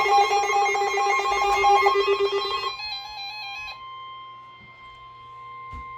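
NOAA Weather Radio warning alarm tone, a steady single-pitched tone that marks the start of a new warning broadcast. For the first three seconds or so, a fast warbling, ring-like alert sounds over it, then cuts out and leaves the steady tone alone, quieter.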